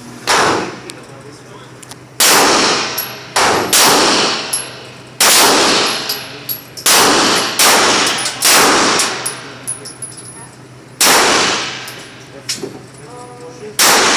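Pistol shots fired in an irregular string, about eleven loud reports with long echoing tails, some coming less than a second apart.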